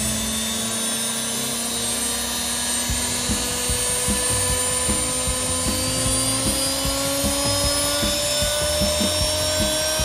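Salvaged washing-machine universal (brushed) motor running steadily, its whine slowly rising in pitch from about the middle on as its speed controller is turned up.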